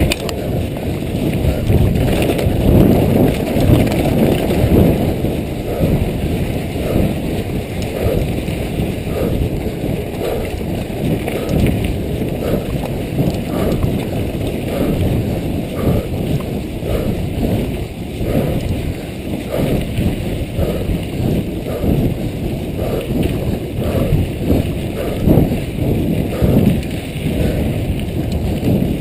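Downhill mountain bike ridden fast down a dirt trail, heard from a camera on the rider: a continuous rumble of wind on the microphone and tyres on dirt, with the bike rattling over the bumps.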